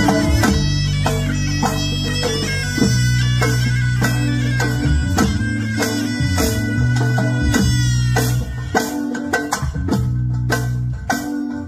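Tunisian zokra, a double-reed shawm, playing a fast, heavily ornamented melody in a loud, reedy tone. Drums and low held bass notes back it.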